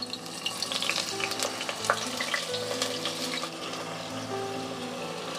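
Marinated chicken pieces sizzling and crackling as they are laid into hot oil in a pan. The crackle is busiest in the first three seconds or so, then settles into a steadier sizzle.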